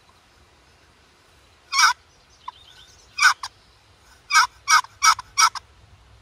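Wooden turkey box call worked by hand, giving hen-like yelps to call in a gobbler: one yelp, a pair about a second and a half later, then a quick run of four rasping yelps.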